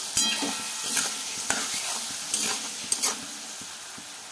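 Grapes frying in hot mustard oil in a steel kadhai, a steady sizzle, with a spatula scraping and clinking against the pan several times as it is stirred.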